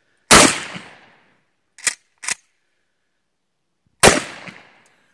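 Two blasts from a Mossberg 535 pump-action shotgun, about four seconds apart, each trailing off over about a second. Between them, two sharp clacks about half a second apart as the pump is worked back and forward to chamber the next shell.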